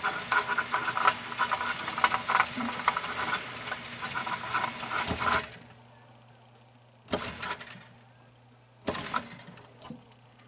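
Rock-Ola 496 jukebox record mechanism running with a busy clatter of clicks and a steady whine, which stops abruptly about five and a half seconds in. Two short clunks follow a couple of seconds apart, over a faint low hum.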